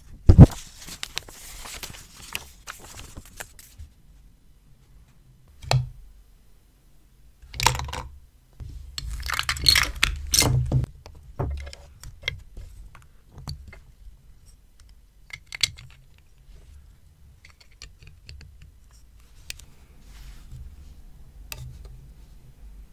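Duplo-style plastic toy bricks being handled and pressed together on a felt mat: scattered clicks and clatter, with a sharp click right at the start and a louder rattling stretch about ten seconds in.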